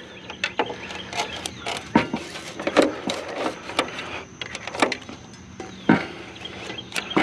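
Irregular clicks, knocks and clatter of an appliance being pulled apart by hand, its metal and plastic parts being pried and handled, over a faint steady low hum.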